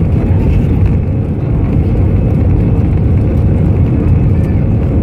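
Airbus A320 cabin noise heard over the wing: a loud, steady rumble from the jet engines and the airliner rolling along the ground.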